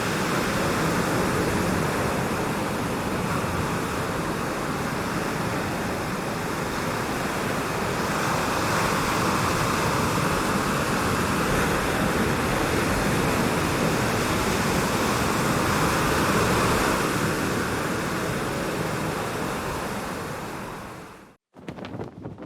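Steady rushing air noise, a continuous hiss like strong wind, that swells slightly and then fades and cuts off about 21 seconds in. A fainter, uneven rush follows near the end.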